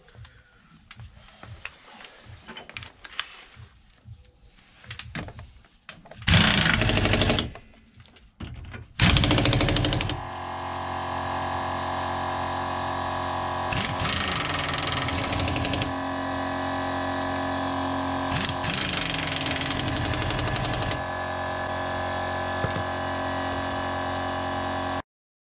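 Pneumatic impact wrench tightening wheel nuts: two short loud bursts, then a steady hammering for about fifteen seconds that shifts a little as it moves between nuts and cuts off suddenly near the end. Light clicks and clinks of the nuts being handled come before it.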